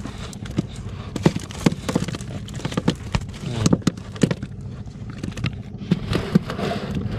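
Live fish flapping and slapping against a wet fibreglass boat deck and a woven plastic basket as they are handled, a run of irregular wet knocks and slaps over a steady low hum.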